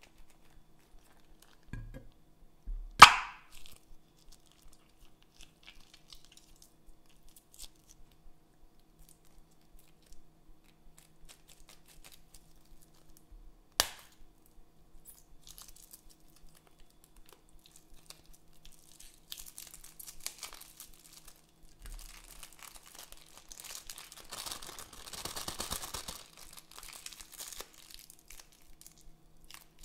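Slime-filled plastic zip bags being squeezed and handled: a single sharp pop about three seconds in, a lighter click later, then a long stretch of plastic crinkling near the end as a bag is peeled off a lump of slime.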